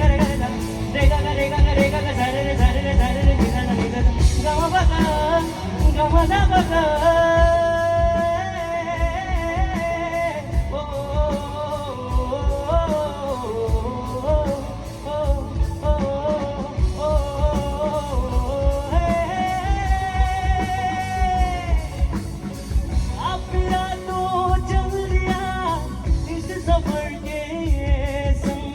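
Live band music with a drum kit keeping a steady beat under a wordless, wavering sung melody.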